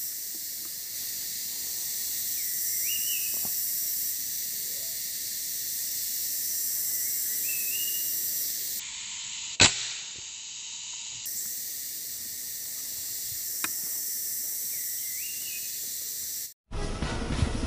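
Steady high insect chorus of the forest with a short rising bird call repeated three times, a few seconds apart. About nine and a half seconds in, a single sharp air rifle shot. Near the end the sound cuts to music over a motorcycle engine.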